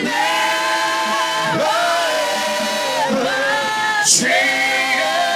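Congregation singing a slow worship chorus together, holding long notes.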